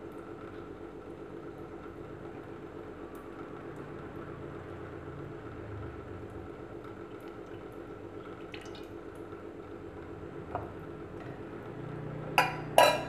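Cooking oil poured in a thin stream from a small metal cup into a wok, over a steady low hum. Near the end come two sharp clinks.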